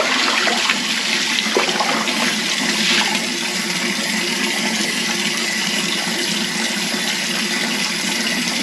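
Tap water running steadily into a partly filled sink, with light splashing as seafood is handled and rinsed under it.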